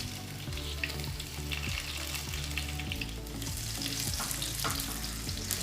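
Crushed garlic, mustard seeds, dried red chillies and curry leaves sizzling in hot oil in a pan, a steady crackle with many small pops.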